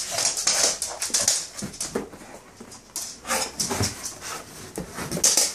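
Staffordshire bull terrier excitedly chasing bubbles, giving rapid short breathy huffs, with a brief whine about three and a half seconds in.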